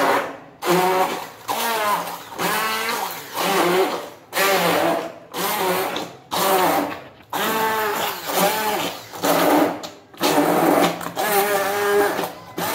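Electric hand blender puréeing chopped tomatoes, run in short bursts about once a second. The motor's pitch dips and rises within each burst as the blades catch the chunks.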